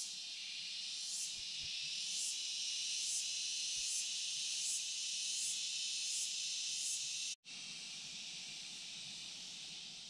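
Insects droning in chorus, a high hiss that swells in regular pulses a little more than once a second. It breaks off abruptly a little past seven seconds in, and a quieter, steadier hiss follows.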